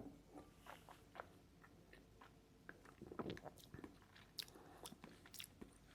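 Faint mouth sounds of someone tasting whisky: scattered wet lip smacks and small tongue clicks as the spirit is worked around the mouth.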